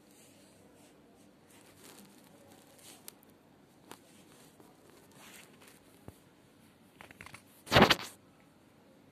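Faint scattered ticks and taps, then a few small clicks and a brief loud rustling crunch lasting under half a second near the end.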